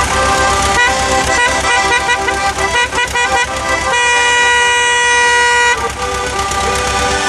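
Small Soviet-era accordion playing a tune: quick changing notes, then one long held note about four seconds in, before the quick notes resume.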